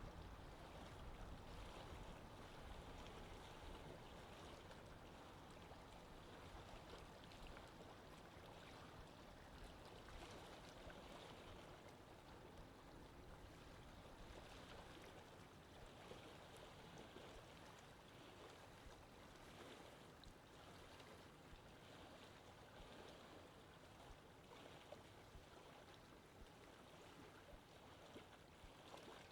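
Faint, steady sea water washing, with a low rumble that eases off over the first few seconds.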